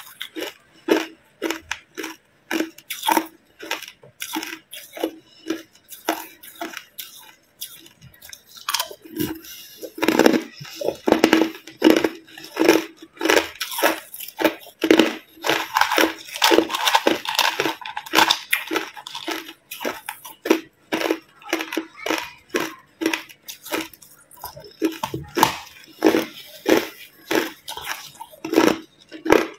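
A person crunching and chewing hard ice, with rapid, irregular crunches. The crunches thin out and grow fainter from about five to nine seconds in, then pick up again.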